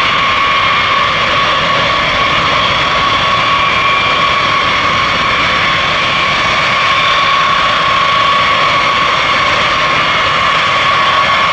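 A taxiing B-52H Stratofortress, its eight TF33 turbofan engines running steadily at low taxi power: a constant loud jet whine over a broad rush of engine noise.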